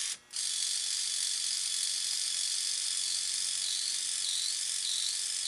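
Small electric trim servo motor whirring steadily at a high pitch as the electric pitch trim is run from the stick-grip buttons. From about three seconds in, the whir wavers up and down in a regular pulse a little under twice a second.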